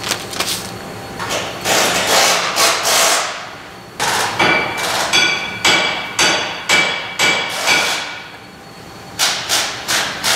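A run of sharp metallic knocks, about two a second, each leaving a short ringing tone, with more knocks near the end and rougher clatter before them.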